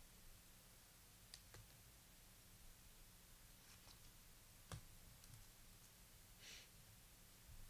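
Near silence with a few faint, scattered clicks and one short soft brush: trading cards being handled and flipped through by hand.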